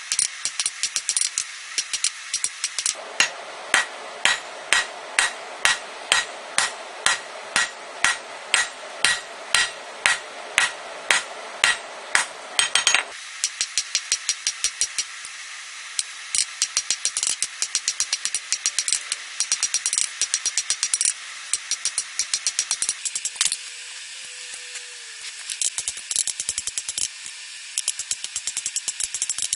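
Hammer striking hot rebar on an anvil, drawing out a taper. A run of heavy, ringing blows at about two to three a second gives way to many faster, lighter taps.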